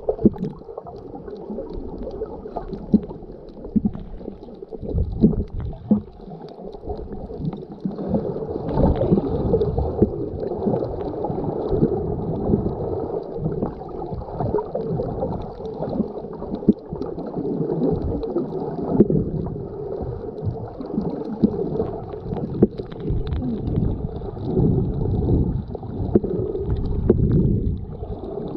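Muffled underwater water noise picked up through an action camera's waterproof housing below the surface: irregular gurgling and sloshing with scattered small clicks and knocks, swelling and easing as the snorkeler swims.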